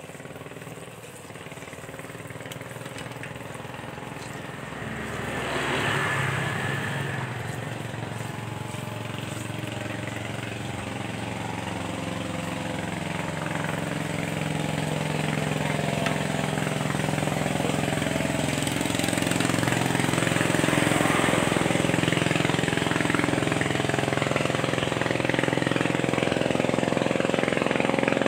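Hot oil sizzling in a wok as banana fritters deep-fry, swelling about six seconds in and growing louder toward the end, over a steady low engine-like hum.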